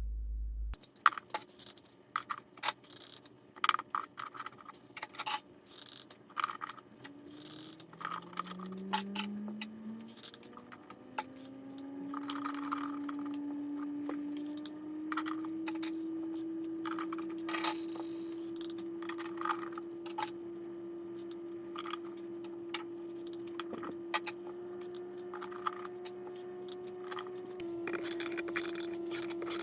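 Irregular clicks and taps of small hard objects being handled, some sharp and bright. Under them a steady hum comes in, rises in pitch over several seconds, then holds level.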